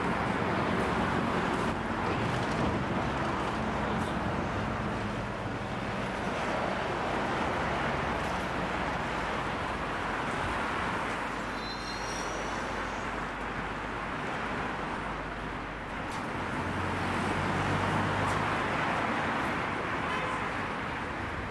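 City street traffic: a steady wash of engine and tyre noise from cars, scooters and a bus on the road alongside, swelling as vehicles pass, most strongly near the end. A few brief high-pitched tones come about halfway through.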